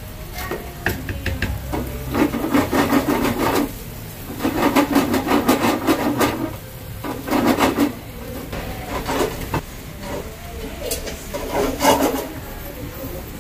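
A spatula, then tongs, scraping and stirring through creamy sauce and pasta in a nonstick frying pan, in rasping bursts of a second or two with short pauses between.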